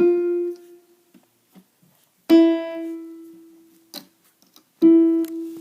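Casio CTK-810 electronic keyboard sounding the same single note three times, each note fading away, with its tone voice changed between notes. The voices are plucked, guitar-like ones. A light click comes between the second and third notes.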